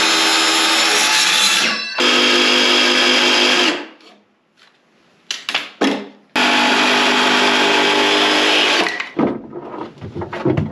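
Cordless DeWalt circular saw running at full speed as it cuts through a painted plywood box, in two runs of a few seconds each. Between the runs, about four seconds in, there is a short lull with a few wooden knocks as pieces are handled. More light knocks follow after the second cut stops.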